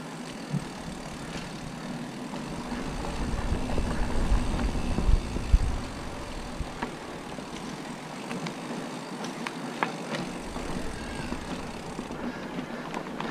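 Mountain bike riding along a dirt trail: a steady rush of tyre and riding noise with a few sharp rattles and clicks from the bike. A louder low rumble on the microphone builds about three seconds in and fades by about six seconds.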